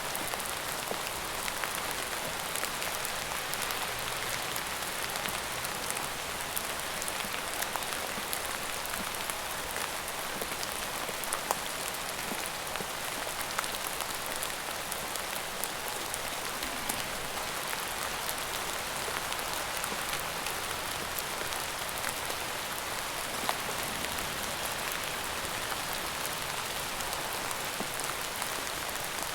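Steady rain falling on a surface, an even hiss scattered with the clicks of individual drops.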